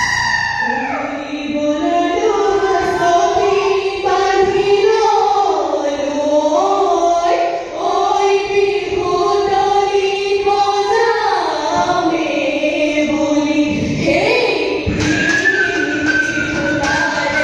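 A group of women singing a Jeng Bihu song together in unison into stage microphones, in long held notes that slide from one pitch to the next. Short percussive taps join in near the end.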